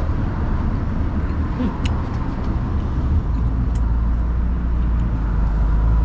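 Low, steady rumble of a motor vehicle's engine running, growing louder about three seconds in, with a few faint clicks over it.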